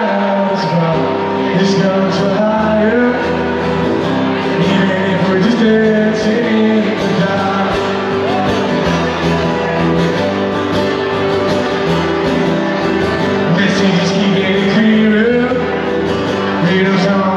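A live band playing a song, with sustained chords, a bass line and a steady beat marked by cymbal hits.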